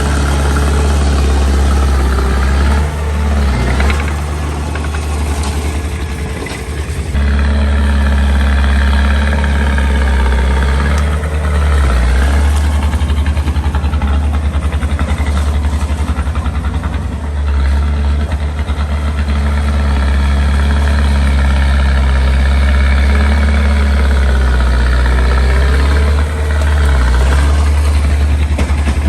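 Small bulldozer's diesel engine running with a steady deep hum, its level dipping briefly a few times as the load changes.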